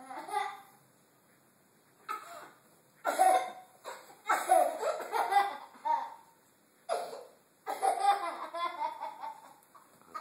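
A toddler laughing in about six separate bursts with short pauses between them; it is his own hiccups that set him off.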